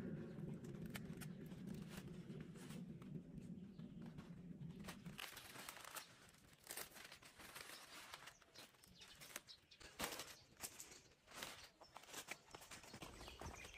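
Leafy green vegetable stalks snapped and torn off by hand, with leaves rustling and crinkling in faint, irregular cracks, mostly from about five seconds in. A faint steady low hum runs underneath at first and stops about five seconds in.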